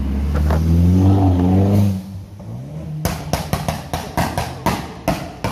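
A car engine revving as it drives past, rising in pitch for about two seconds. About three seconds in, a quick, irregular run of about a dozen sharp cracks or claps.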